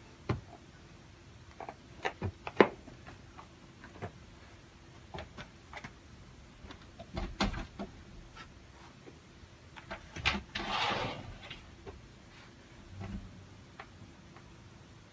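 A caracal pawing at a closed door: scattered knocks and taps, the loudest two close together a couple of seconds in, with a short rushing noise just after ten seconds.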